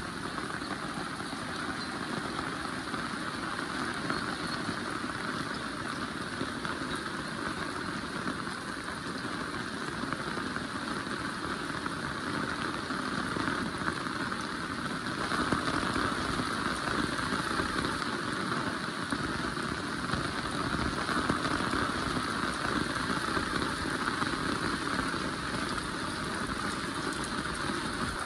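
Heavy rain falling steadily, growing a little louder about halfway through.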